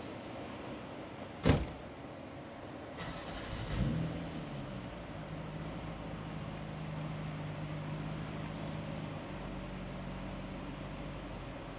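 Turbocharged Toyota 2GR V6 in an MR2: a sharp click, then about four seconds in the engine catches with a quick rise in pitch and settles to a steady idle. The idle note drops a little after nine seconds.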